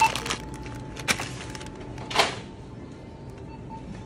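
Self-checkout scanner beeping once as a bag of candy is scanned, followed by a click and a short rustle of plastic packaging.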